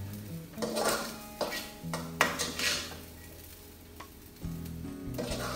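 Spatula scraping and scooping fried rice around a wok on a gas stove: a run of uneven scraping and clattering strokes with a light sizzle, the strongest stroke a little over two seconds in and a quieter gap in the middle.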